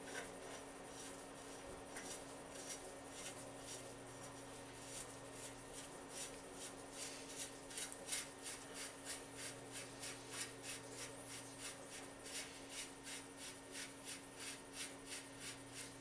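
The threaded top race of a vintage Schwinn headset being unscrewed by hand, metal threads scraping in a run of light ticks. The ticks are faint at first and come about two or three a second from a few seconds in.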